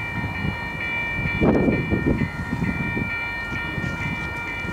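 Railroad bell ringing repeatedly, about two strikes a second, each strike renewing a steady high metallic ring. Under it runs an uneven low rumble that swells about a second and a half in.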